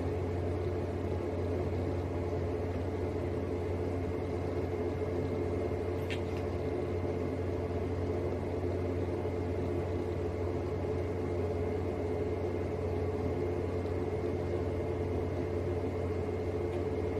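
Steady low mechanical hum of room ventilation running in a small bathroom, with a faint steady high whine over it.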